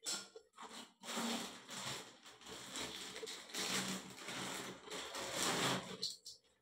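Clear plastic packaging of a new braided shower hose crinkling and rustling as it is handled, in uneven surges that stop a little after six seconds in.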